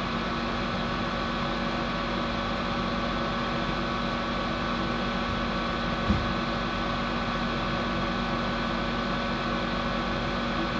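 Steady machine hum with several held tones, like a small fan or motor running; one short knock about six seconds in.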